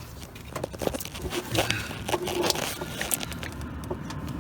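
Irregular clicks, knocks and scrapes of metal hardware and hand tools being handled while fitting engine motor mount bolts.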